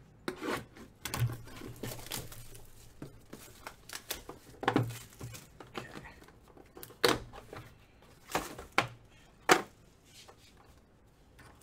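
Plastic wrapping on a trading-card box or pack crinkling and tearing as it is opened by hand, in irregular rustles and rips that die away near the end.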